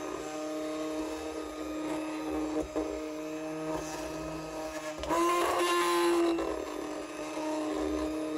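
Handheld stick blender running steadily in a stainless steel pot of cream soap batter, bringing it toward trace. About five seconds in it gets louder and slightly higher-pitched for a second or so, then settles back.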